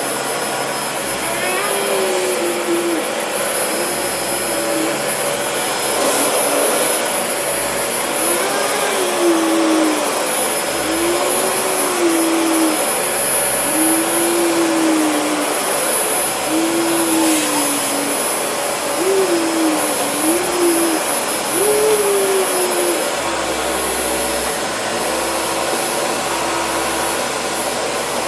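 Dyson DC40 upright vacuum cleaner running steadily with a thin high whine. Its pitch bends up and down every second or two as it works over the floor.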